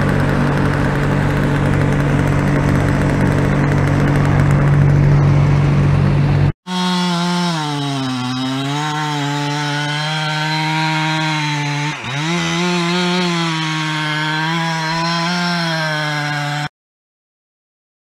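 A loud, steady mechanical drone with a fixed pitch, then an abrupt cut to a chainsaw running at high revs, its pitch sagging and recovering as it works through wood. The chainsaw cuts off suddenly near the end.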